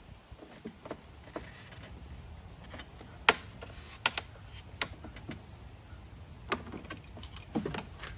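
Sharp clicks and taps from a scored acrylic sheet being worked to break a piece off, the loudest about three seconds in; the piece has not yet snapped free.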